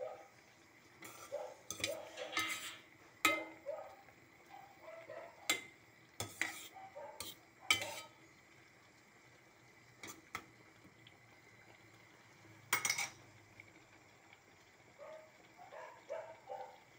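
A metal spoon stirring mung beans in a stainless steel pot, clinking and scraping against the pot's sides and rim in a series of sharp, separate knocks.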